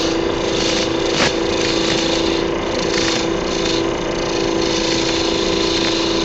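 Wood lathe running with a steady motor hum while a roughing gouge cuts the spinning wood blank, rounding it out; the cutting is a rushing hiss that swells and fades with each pass of the tool, and a single sharp tick comes about a second in.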